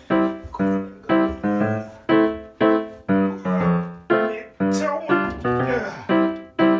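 Piano music: single struck notes, roughly two a second, each ringing and fading before the next.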